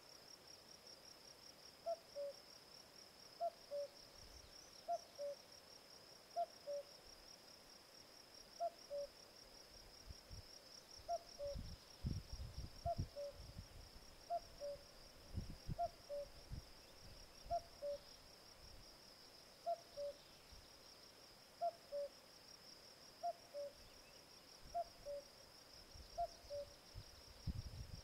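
Common cuckoo singing its two-note "cu-coo", the second note lower than the first, repeated about every one and a half seconds, some fifteen times. A steady high insect trill runs underneath, and low rumbles come through in the middle and near the end.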